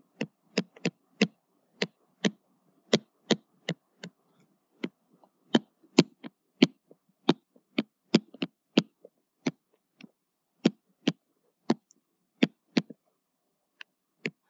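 Stylus tip tapping on a tablet while writing by hand: sharp, irregular clicks, about two a second, over a faint steady hum.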